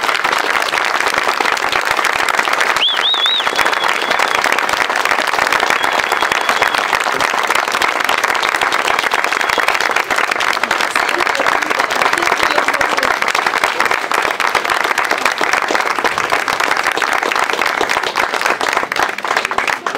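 Audience applauding steadily with dense clapping after a live song. A high warbling whistle rises above the clapping about three seconds in.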